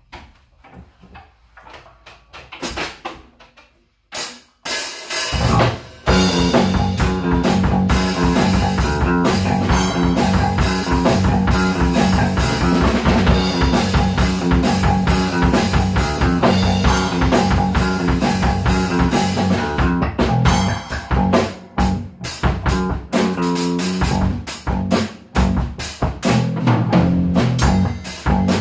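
Drum kit and electric bass guitar jamming together. After a few seconds of quiet with scattered soft hits, the full groove comes in about five seconds in: kick, snare and cymbals under a repeating bass line, continuing with a few brief breaks near the end.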